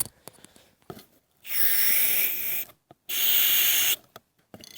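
Aerosol spray-paint can hissing in two bursts of about a second each, sprayed through a nozzle that is not working properly.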